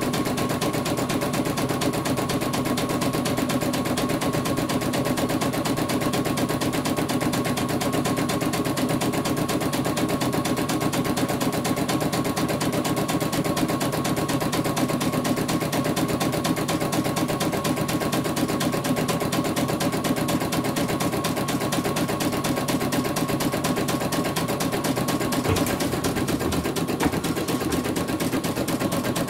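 CNY portable embroidery machine stitching: rapid, steady needle strokes with a steady high whine from its motors.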